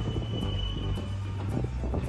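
Kintetsu electric train running past with a low rumble and a steady high-pitched wheel squeal from the sharp curve, which stops about a second in, with music alongside.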